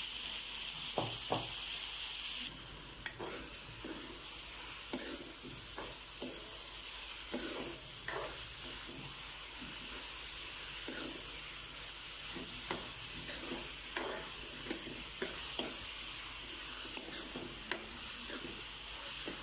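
Freshly added chopped onions sizzling in hot oil in a metal karahi, with a metal spoon scraping and clicking against the pan as they are stirred. The sizzle is louder for the first couple of seconds, then settles to a steadier, quieter hiss.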